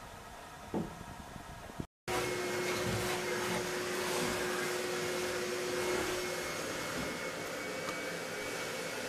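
A motor running steadily, a whirring noise with a held hum, starting abruptly after a brief dropout about two seconds in. Before it there is quieter background noise with a single click.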